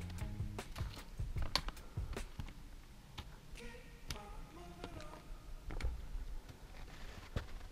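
Footsteps and the metal tips of trekking poles tapping on rocky, frost-dusted ground: an irregular run of sharp clicks and knocks.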